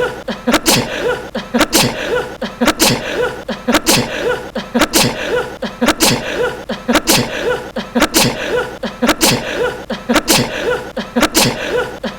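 A young man's small, cute sneeze, looped so that it repeats about every two seconds.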